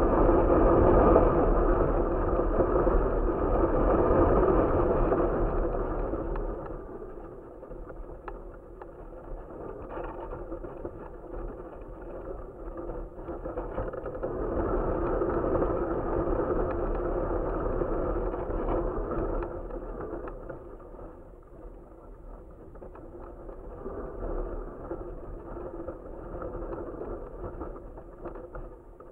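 Wind buffeting a camera mounted on a flying box kite, a steady rush that swells and eases in gusts: strong at first, dropping after about six seconds, building again midway and fading toward the end.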